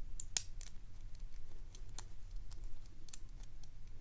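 Light, irregular metallic clicks of a lock pick and tension wrench working the spool pins inside a Papaiz Euro padlock, with one sharper click about half a second in.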